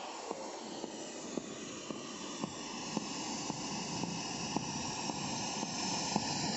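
A steady rushing noise that grows slowly louder, with scattered faint clicks.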